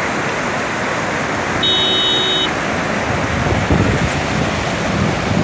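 Fast, shallow mountain stream rushing over rocks and gravel: a loud, steady rush of water, with some wind rumble on the microphone. A brief high-pitched tone sounds for under a second, about a second and a half in.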